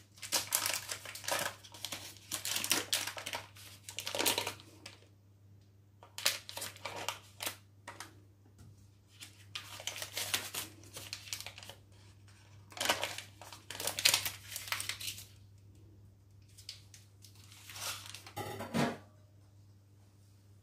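Paper butter wrapper crinkling and tearing as a small piece of butter is unwrapped by hand, in several rustling bursts with short pauses between them. A faint steady hum runs underneath.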